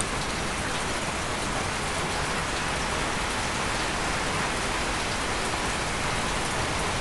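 Steady hiss of even noise with a few faint ticks in it, rain-like in character.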